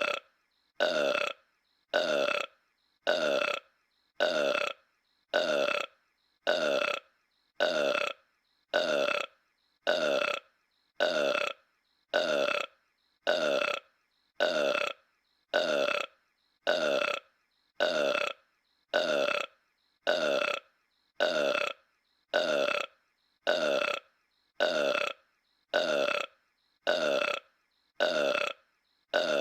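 The same short cartoon burp of King Homer (Homer Simpson as a giant ape) looped over and over, just under once a second, each burp about half a second long with a silent gap between.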